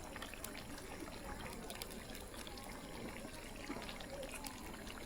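Faint trickling water, with a few light clicks scattered through it.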